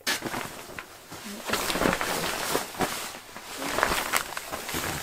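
Rustling and scraping of a foam sleeping mat's fabric cover as it is rolled up and strapped by hand, irregular and loudest around two and four seconds in.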